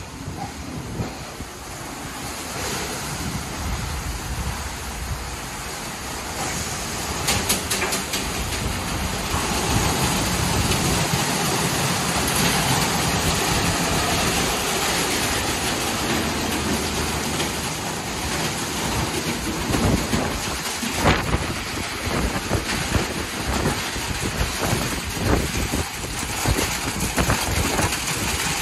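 Ryko Select-A-Wash rollover car wash in its brush cycle: water spraying and red cloth wraparound brushes spinning and slapping against a pickup truck's body. It is a dense, rain-like wash noise with irregular slaps, and it grows louder about ten seconds in as the brushes come round to the back of the truck.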